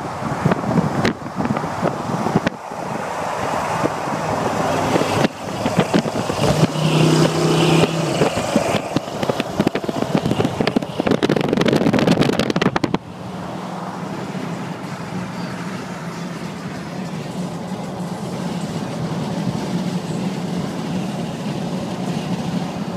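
Wind buffeting and highway traffic noise through an open car window at speed, with a low engine note rising briefly around seven to eight seconds in. About 13 seconds in the sound drops suddenly to a steady, quieter in-cabin road drone.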